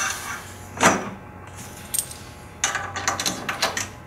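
Metal snap pin clinking against an aluminium raft-frame pipe as it is handled and fitted into a swage joint: one click about a second in, then a run of light metallic clicks and jingles near the end.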